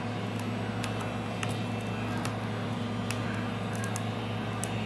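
Small sharp ticks and clicks of broken glass being picked off an iPad 2's frame, about one every second, over a steady low hum.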